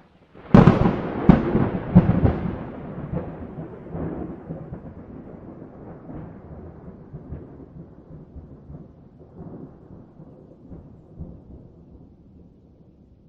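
A nearby thunderclap: a sharp crack about half a second in and two more cracks within the next second and a half, then a long rolling rumble that slowly dies away.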